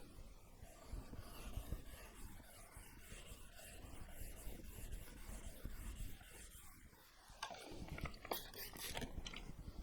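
Steel chisel being drawn back and forth on a 6000-grit Japanese waterstone, a faint wet scraping that grows sharper in the last couple of seconds. This is the final polishing stage of sharpening the edge.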